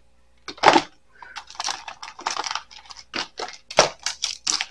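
Loose batteries and other small hard items clicking and clattering against each other and their container as they are sorted by hand. It is a quick run of sharp clicks, with a louder clack near the start and another a little before the four-second mark.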